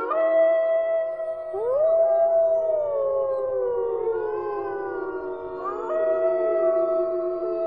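A chorus of several long canine howls overlapping, each rising and then sliding slowly down in pitch. A new howl joins about a second and a half in and another near six seconds.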